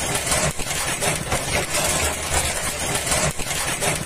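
Vehicle engine running with a steady low hum, heard from inside the cab, under a dense hiss of heavy rain and spray on the windscreen.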